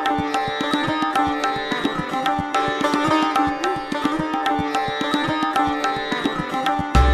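Background music: a plucked string instrument with sliding notes over a steady drone, accompanied by hand-drum strokes in a sitar-and-tabla style. A deep bass beat comes in at the very end.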